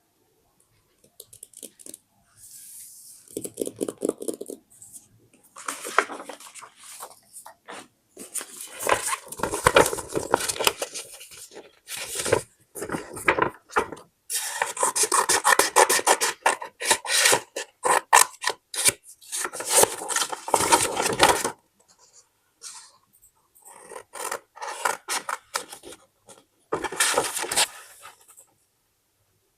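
Paper and card handled close to the microphone: rubbing, rustling and scratching of sheets in bursts of one to seven seconds, separated by short silences, with a few sharp clicks among them.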